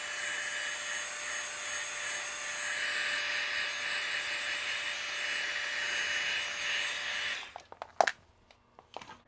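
Heat gun running with a steady blowing rush and a faint whine, warming a racquet's plastic grommet strip to make it pliable. It cuts off about seven and a half seconds in, followed by a few sharp clicks.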